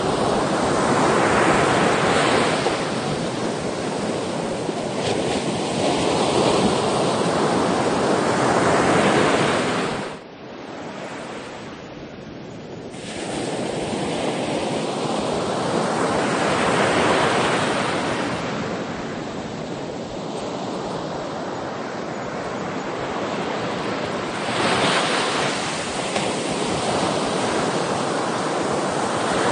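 Sea waves breaking and washing on a shore in a continuous rush that swells and ebbs. About ten seconds in it drops abruptly to a quieter lull, and the surge builds again a few seconds later.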